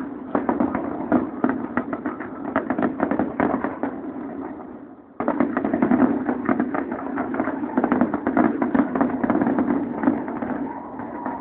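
Fireworks display going off: a dense, rapid crackle of many bangs over a continuous rumble. The sound fades about four seconds in, then cuts back in suddenly a second later.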